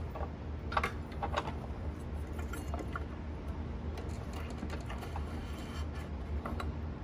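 Scattered light clicks and rattles, clustered about a second in, as a new rubber V-belt is worked by hand into place under a bracket on a mower deck's metal housing, over a steady low hum.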